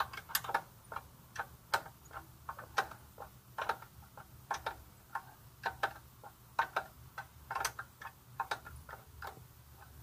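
Sharp metallic clicks, irregular at about one or two a second and sometimes in quick pairs, from a wrench working the chain adjuster bolt on a Honda CB300R's swingarm as the chain is tensioned.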